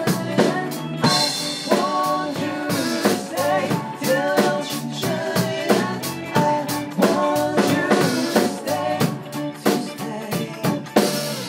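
Live pop song: a male voice singing into a microphone over a band, with a drum kit keeping a steady beat.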